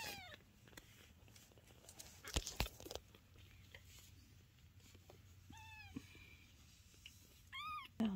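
Kittens mewing in short, high mews: one right at the start and two more in the last few seconds. Two sharp knocks come close together about two and a half seconds in.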